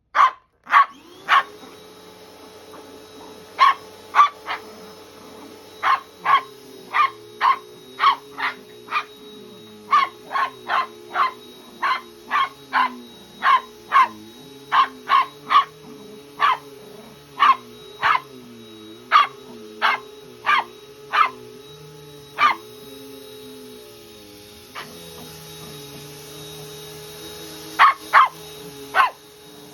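A dog barking over and over in sharp single barks, often two or three a second, at a running vacuum cleaner. The vacuum starts up about a second in and hums steadily, its lower note wavering as it is pushed back and forth. The barking stops for several seconds near the end, then starts again.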